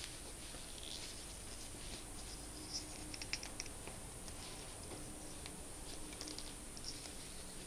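Faint handling noise of a mini bendy tripod's flexible legs being bent and twisted by hand: small scattered clicks and rustles, with a cluster of sharper ticks about three seconds in.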